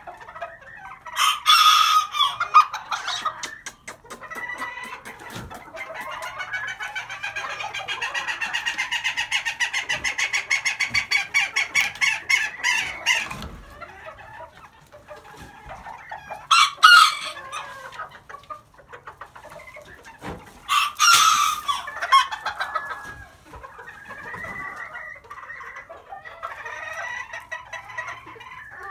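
Brown-red Old English Game bantam chickens calling. There are several loud crows and a long run of rapid, repeated clucks in the middle, with softer clucking near the end.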